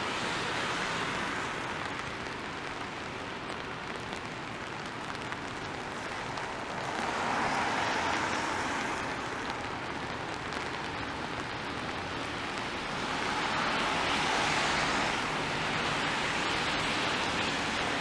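Steady hiss of rain and wet city traffic, with the swish of tyres on wet pavement swelling and fading twice, about seven and thirteen seconds in, as vehicles pass.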